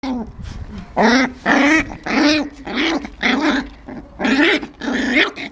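West Highland white terrier puppy growling in about seven short bursts, starting about a second in, as a bad-tempered puppy does.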